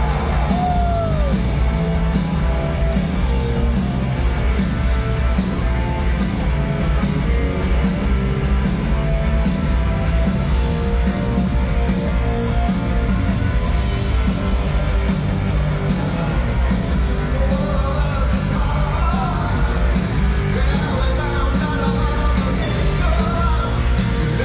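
A rock band playing live through an arena PA, picked up from the crowd: electric guitars, bass and drums at a steady, loud level. A voice comes in over the music in the last several seconds.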